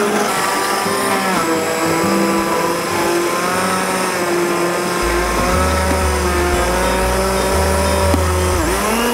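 Riino Multifunctional Blender's motor running at high speed on setting one, churning apple pieces into juice. It is a loud, steady whine whose pitch wavers as the blades work through the fruit.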